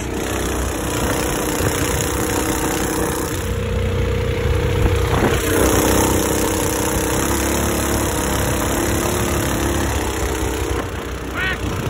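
Predator 212 single-cylinder four-stroke engine of a longtail mud motor, fitted with an aftermarket exhaust, running hard under load as it drives a 7-inch weedless surface-drive prop, with the rush of the prop's spray. The engine note rises about five seconds in. The owner finds this prop a little too much prop for the setup.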